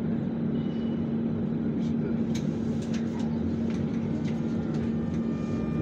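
Interior of an Alsthom TFS tram under way: a steady low rumble with a constant hum and a few faint clicks.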